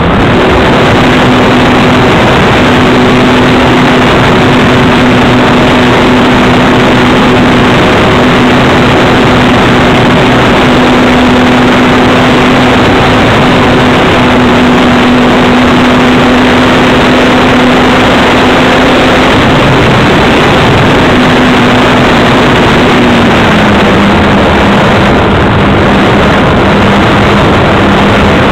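Radio-controlled model aircraft in flight, heard from its onboard camera: the motor and propeller run steadily under a loud, constant rush of wind over the microphone. The motor's hum drops slightly in pitch about 23 seconds in, as the throttle eases back.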